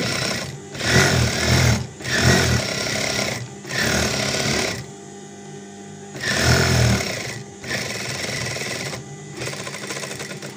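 Sewing machine stitching a seam slowly in about six short stop-start runs of one to one and a half seconds each, with brief pauses between them.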